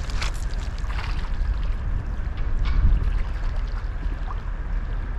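Wind buffeting the microphone: a loud, uneven low rumble, with a few faint clicks and rustles near the start and again about two and a half seconds in.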